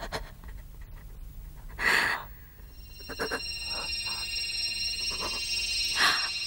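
Fantasy drama sound effect for a magical flash: a short whooshing burst about two seconds in, then a high shimmering ringing of several wavering tones that sets in and holds, with another sharp burst near the end.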